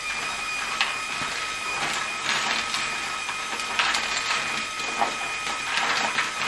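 LEGO Technic 42100 Liebherr R 9800 excavator's Control+ motors whining steadily as the bucket curls forward into a pile of plastic 2x2 round LEGO bricks. Loose bricks clatter and click against the bucket and each other several times.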